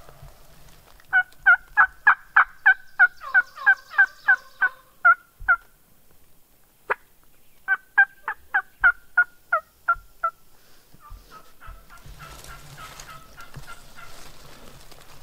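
Turkey yelping: a long run of loud, evenly spaced yelps, about three a second, each breaking from a higher to a lower note. A single sharp click comes between it and a second shorter run, and a fainter run of notes follows near the end.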